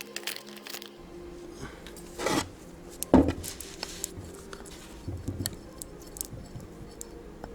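Metal clicks and knocks of an old, worn-out ball joint being cut open by hand, with a short rasp a little over two seconds in and the heaviest knock about a second later.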